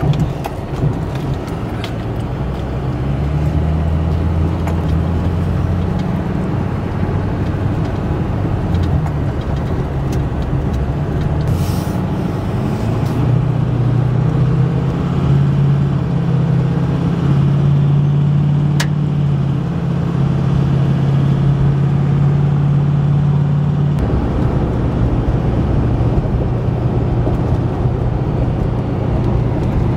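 Vehicle driving at highway speed, heard from inside the cab: a steady engine hum under continuous tyre and road noise.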